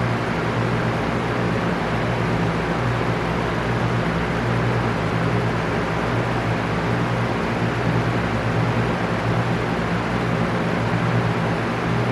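Electric fan running steadily: a constant rush of air with a low motor hum beneath it.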